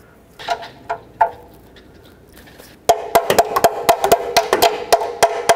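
Hand ratchet clicking rapidly as it tightens the top exhaust flange bolt between the manifold and the new catalytic-converter pipe. The clicks start about three seconds in, sharp and ringing at several per second, after a few light clicks near the start.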